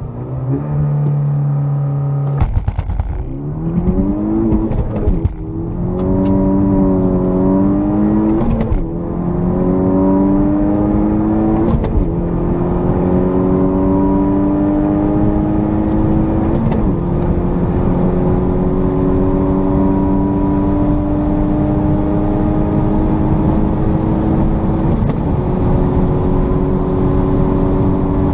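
Tuned Peugeot RCZ's 1.6 THP turbocharged four-cylinder engine, with hybrid turbo and remap, heard from inside the cabin: held revving at a standstill, then launching about two and a half seconds in and accelerating hard up through the gears toward top speed. The pitch climbs in each gear and dips at each of about five upshifts, rising ever more slowly in the higher gears.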